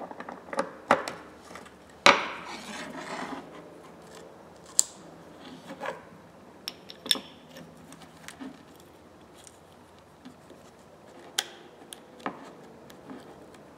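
Small metal parts of an old Plomb half-inch ratchet head being handled and worked with a pick while a spare spring is fitted: scattered clicks, taps and light scrapes. The loudest click comes about two seconds in, followed by about a second of scraping.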